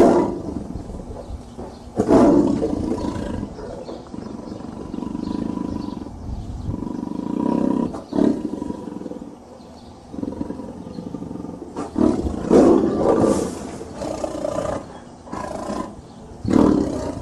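Tiger roaring in a series of calls with short pauses between them, the loudest about two seconds in and again around twelve seconds in.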